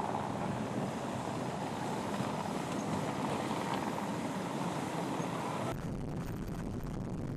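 Wind and rushing water on board a Volvo Open 70 racing yacht under sail, with wind buffeting the microphone. About six seconds in it cuts abruptly to a steadier low rumble.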